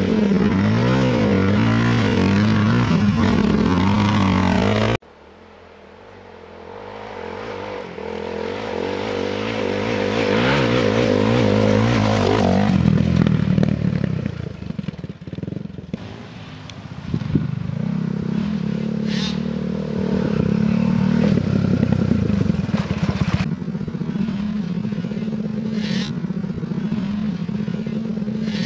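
Suzuki DR350 dirt bike's single-cylinder four-stroke engine revving while ridden on a dirt trail, its pitch rising and falling with the throttle. About five seconds in it cuts off abruptly, then comes back faint and grows louder as the bike approaches.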